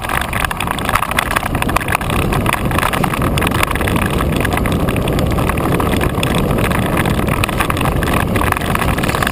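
Gary Fisher Rumblefish 29-inch full-suspension mountain bike ridden fast on a dirt trail: tyres rumbling over the dirt and the bike rattling with many small clicks, mixed with wind rushing over a fork-mounted camera's microphone. The noise grows louder over the first couple of seconds, then holds steady.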